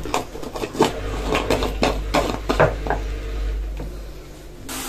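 Red plastic screw lid being twisted shut on a glass instant-coffee jar: a quick run of small clicks and scrapes, plastic on glass. Near the end a steady hiss starts up.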